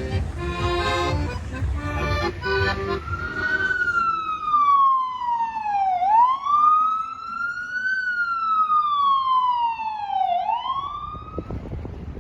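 An emergency vehicle's siren wailing, its pitch sliding slowly down and sweeping back up twice over about eight seconds, after a few seconds of music at the start.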